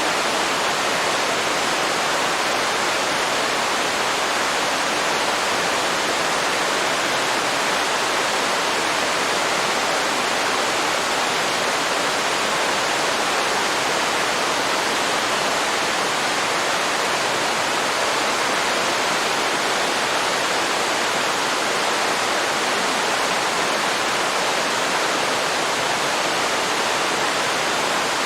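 Waterfall pouring into a river: a steady, unbroken rush of falling water.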